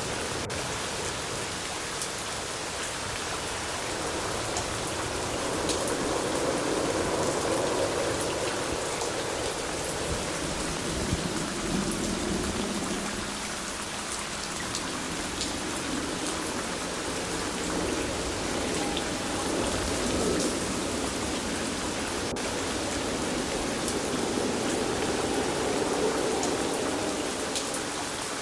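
Steady rain falling, with scattered sharp drop clicks and slow swells of low rumbling that rise and fade twice.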